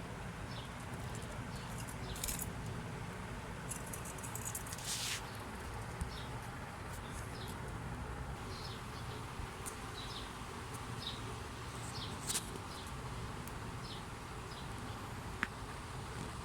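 Budgerigars making scattered short, high chirps and small clicks over a steady low background hum, with a longer scratchy burst about five seconds in.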